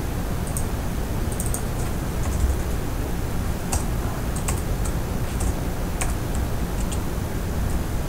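Computer keyboard being typed on, with a few irregular, separate keystrokes over a steady low hum.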